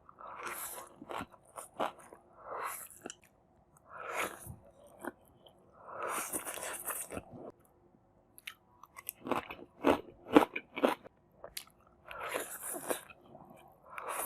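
A person chewing and biting food: bursts of chewing separated by short pauses, with a run of sharp bites about two-thirds of the way through.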